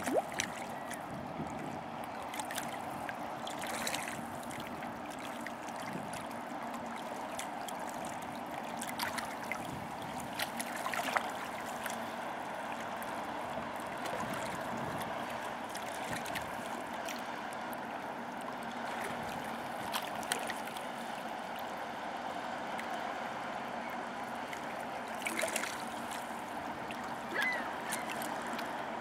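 Water lapping and splashing at the riverbank with a steady low drone as the lake freighter Baie St. Paul passes close by. A goose honks a couple of times near the end.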